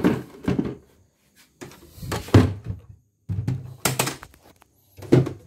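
Hollow knocks and thunks, about five in a row, as the white plastic housing and extension-table parts of a CNY portable embroidery machine are handled and set down.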